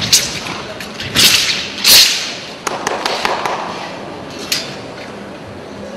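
Chinese broadsword (dao) swishing through the air in four quick cuts, the loudest about two seconds in, with a few sharp taps in between.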